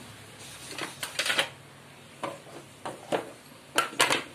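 Kitchenware clattering: a handful of short clinks and knocks of utensils against a glass mixing bowl and metal llanera tins, the sharpest pair near the end.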